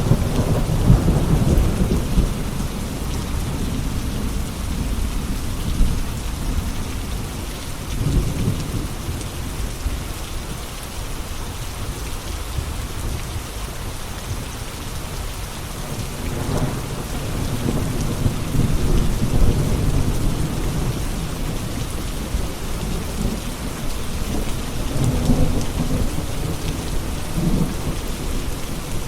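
Steady rain falling, with a deep low rumble that swells and fades several times.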